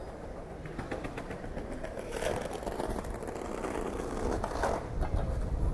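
City-street ambience: a steady low traffic rumble that grows louder near the end, with a vehicle going by and a few faint clicks.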